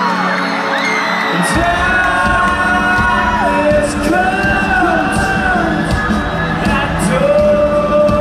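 Live rock band playing in an arena, with sustained singing and whoops from the crowd; the bass and drums come in about a second and a half in.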